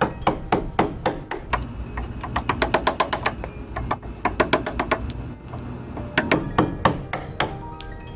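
Hammer striking wood in a long series of sharp blows, quickening to a fast run of knocks around the middle.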